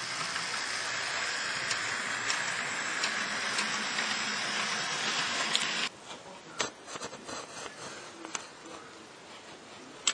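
Model tram running on a model railway layout: a steady hissing whir from its motor and wheels on the rails, then about six seconds in a sudden drop to a quieter run with scattered light clicks.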